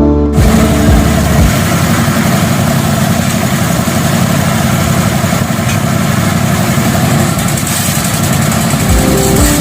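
An engine running steadily, with a dense, rapid low rattle under a hiss. Music beats fade out in the first second and come back near the end.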